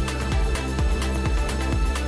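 Background music: an electronic track with a steady kick-drum beat, about two beats a second, over held bass notes.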